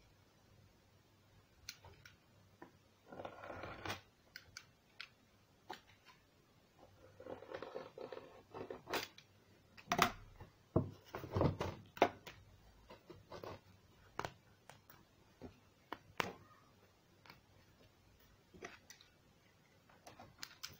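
Cardboard and paper being handled and cut on a wooden table: scattered taps and clicks, with three short bursts of scraping rustle.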